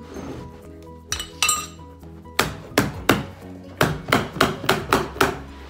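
Staple gun firing staples through a carpet runner into a stair, about nine sharp shots starting a little before halfway: three, then a quicker run of six. Background music plays underneath.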